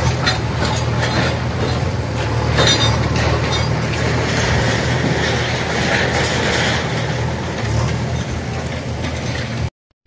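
Heavy diesel machinery running steadily close by during a demolition, with scattered knocks and clatter in the first few seconds; the sound cuts off abruptly near the end.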